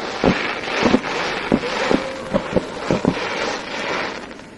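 Fireworks going off close by in quick succession: a string of sharp bangs over a continuous crackling hiss of burning sparks, dying down near the end.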